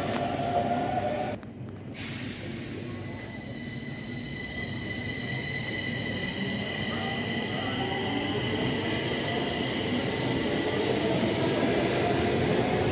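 Stockholm metro C20 trains in an underground station. A steady high whine of several tones sits over a rumble that grows louder as a train pulls in on the far track.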